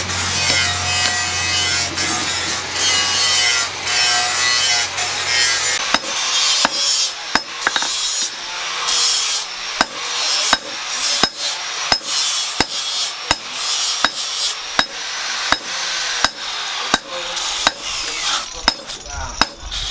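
Rasping, scraping strokes of a hand tool working the piece, with a sharp click about one and a half times a second. A steady low hum runs underneath and stops about six seconds in.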